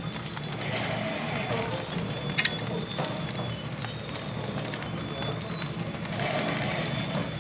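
Horizontal flow wrap packing machine running steadily, with a constant high whine and scattered sharp clicks as the printed wrapping film feeds through.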